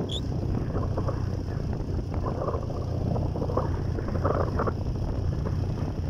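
A vehicle travelling along a road, its engine and road noise a steady low drone, with wind buffeting the microphone.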